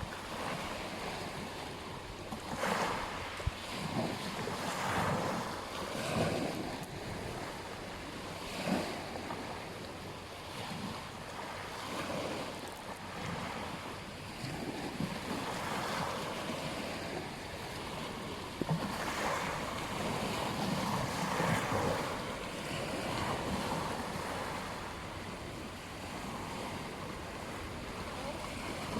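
Ocean surf breaking and washing up a beach, a continuous rush that swells every few seconds as waves come in.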